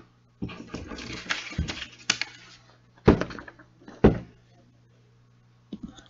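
Handling noises: about two seconds of rustling and clicking, then two loud thumps about a second apart, and a couple of small clicks near the end.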